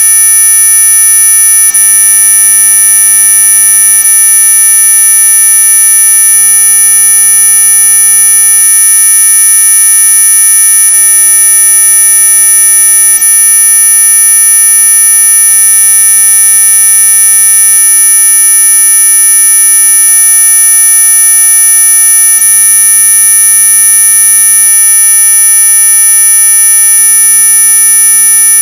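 Electronically generated anti-mosquito 'ultrasonic' repellent tone: a loud, steady, high-pitched whine made of several constant pitches layered together. It is held without any change or break, like a buzzer.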